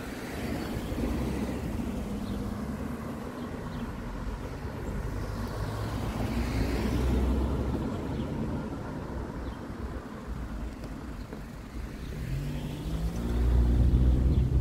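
Cars driving past on a street. Engine and tyre noise swells and fades about halfway through as one car passes. Near the end a car's engine is loudest, its pitch stepping upward as it speeds up.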